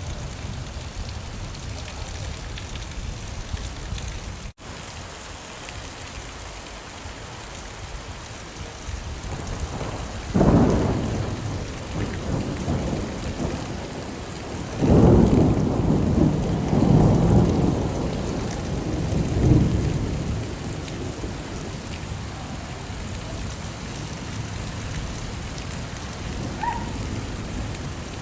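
Steady rain falling, with thunder: a rumble about ten seconds in, then a longer rolling rumble from about fifteen to twenty seconds. The rain cuts out for an instant about four and a half seconds in.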